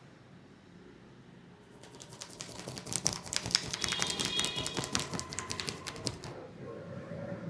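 A barber's hands rapidly tapping and patting on a head during an Indian head massage (champi), a fast rattling run of sharp taps. It starts about two seconds in and stops about six seconds in.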